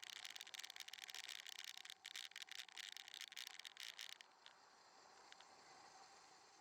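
Faint crackling, rubbing noise from a bicycle-mounted camera picking up vibration while riding. It stops abruptly about four seconds in, leaving a faint steady hiss with a couple of small ticks.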